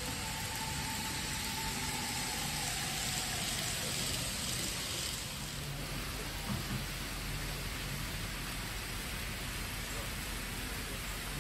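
N-scale model trains running on the layout track: a steady rushing hiss of wheels and motors, with a faint high motor whine that fades away over the first few seconds.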